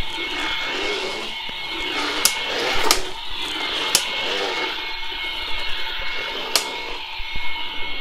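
Honestly Cute push-along toy vacuum cleaner running its realistic vacuum sound as it is pushed over carpet: a steady whir, with a few sharp clicks.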